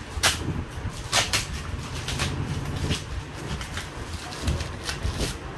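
Packaging being unwrapped by hand: white wrapping crinkles and tears in short bursts, the strongest about a quarter second, a second and two seconds in. A low steady hum runs underneath.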